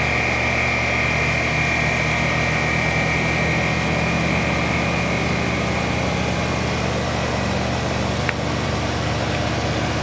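Outdoor unit of a 3-ton air-source heat pump running steadily: the reciprocating compressor, speed-controlled by a variable frequency drive, hums low and even with its condenser fan, running normally. A high whine fades out over the first several seconds.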